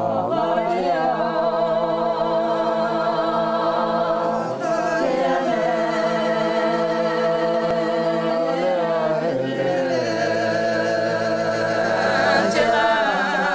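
Group of Lotha Naga women singing a traditional song a cappella, in long held phrases that change about every four to five seconds.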